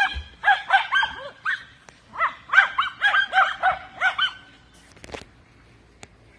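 Small dogs barking excitedly at play, a rapid run of short, high-pitched yaps that stops about four seconds in.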